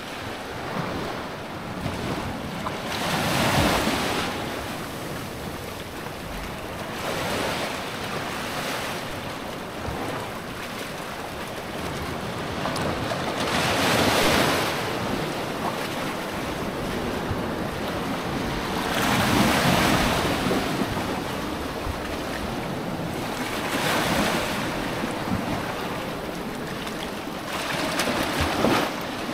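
Sea waves breaking on a sandy beach, a wash swelling and fading about every four to six seconds, with wind on the microphone.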